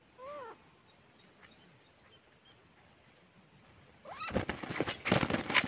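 Teetar (francolin partridge) calling. One short call near the start and faint high chirps, then about four seconds in a rising note breaks into loud, harsh, rapid calls.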